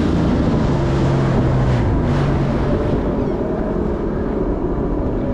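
Supercharged 2016 Sea-Doo RXP 300 personal watercraft running at speed, its engine drone buried under the rush of spray and hull slap, with wind buffeting the microphone. The rushing eases a little in the second half as the ski slows.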